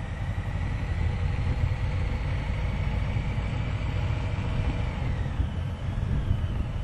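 Harley-Davidson Sport Glide's Milwaukee-Eight 107 V-twin running steadily as the bike pulls away in first gear, with a deep, even rumble. A faint high whine rises slowly and drops away about five seconds in.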